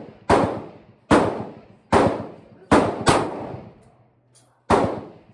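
Omni Maxx AR-15 pistol firing six semi-automatic shots at an uneven pace of roughly one a second, two of them in quick succession. Each shot trails off in a long echo.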